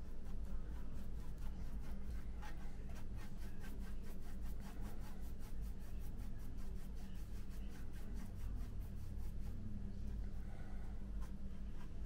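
Fine paintbrush scratching and dabbing paint onto a plastic model kit part in quick repeated strokes, several small scratchy ticks a second, over a steady low hum.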